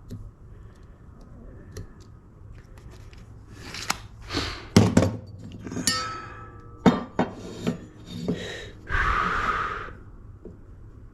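Hardware and tools being handled on a workbench: a run of clinks, clacks and knocks, several of them sharp, then a second-long scraping noise near the end.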